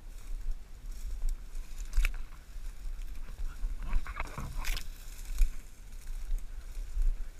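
Wind buffeting the microphone with a steady low rumble, and dry tall grass swishing and brushing against the camera as it moves through the field, in irregular rustles that bunch up about four seconds in.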